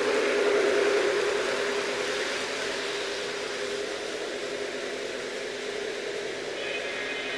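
Model train running on the track: a steady motor hum over rolling wheel noise, loudest about a second in and fading as the train moves away.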